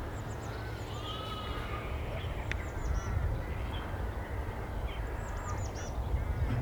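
Birds calling outdoors: thin high falling chirps near the start and again about five seconds in, and a wavering call with a few notes about a second in, over a steady low rumble.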